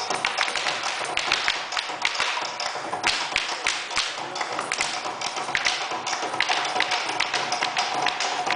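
Malambo sapateio: fast, irregular boot taps and stamps on a wooden dance floor.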